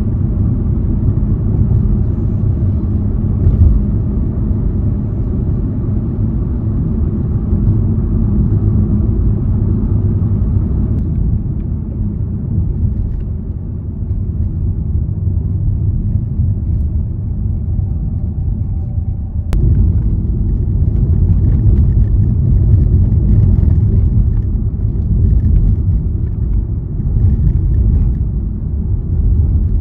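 Steady low rumble of a car's road and engine noise, heard from inside the cabin while driving along at an even pace.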